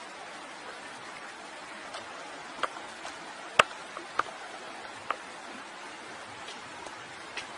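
Steady hiss of outdoor background noise with about half a dozen short, sharp ticks scattered through it, the loudest about three and a half seconds in.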